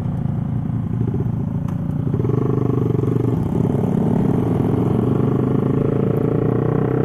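Motorcycle engine running steadily, its pitch creeping up slightly over the last few seconds.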